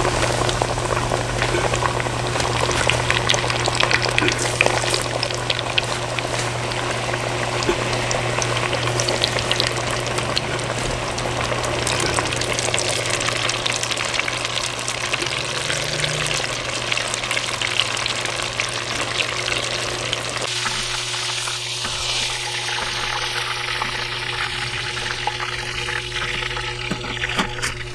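Breaded chicken tenders deep-frying in hot oil: a steady dense sizzle full of small crackling pops, over a steady low hum.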